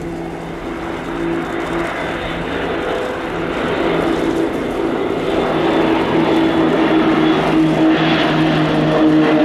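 Airbus A400M's four turboprop engines and eight-bladed propellers droning in a low flypast, with four Extra 300 aerobatic planes in close formation. A steady deep propeller hum over a rushing noise grows steadily louder as the formation approaches.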